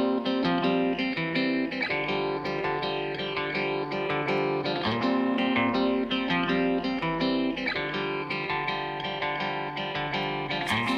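Background music: a guitar track with steadily picked notes, its chord pattern changing every few seconds.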